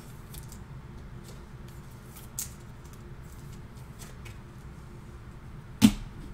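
Trading cards and a clear plastic card sleeve being handled, with light rustling and small ticks and a single sharp knock near the end.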